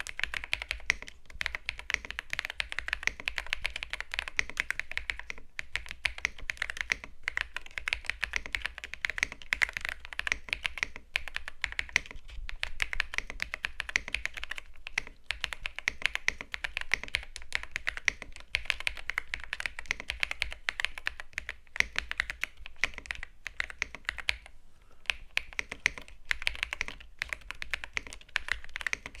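Continuous fast typing on a keyboard: a dense stream of key clicks with a few short pauses, the longest about 25 seconds in.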